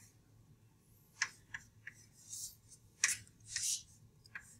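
Chalk writing on a blackboard: three quick taps about a second in, then several short scratchy strokes of the chalk across the board.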